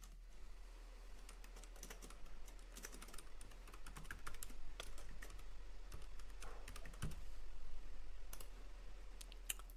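Computer keyboard typing: a quiet, irregular run of key clicks, with a few sharper clicks near the end.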